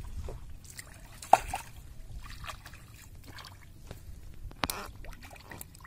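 Water splashing and trickling as a fishing net is hauled by hand out of shallow marsh water beside a wooden boat, with a fish caught in it. Two sharp slaps stand out, about a second in and again near the end.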